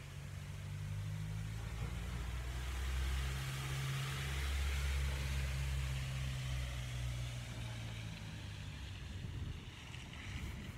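A motor vehicle passing by: a low engine hum and tyre hiss that swell to a peak around the middle and then fade.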